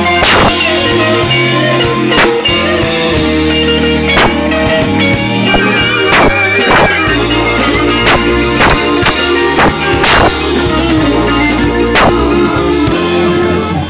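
Live blues band playing an instrumental intro: electric guitar lines over bass and a drum kit keeping a steady beat.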